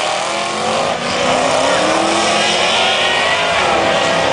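Two drag cars, one a supercharged 2005 Ford Mustang GT V8, accelerating hard down the quarter mile. Engine pitch climbs, with a short break and a fresh climb as they shift gears.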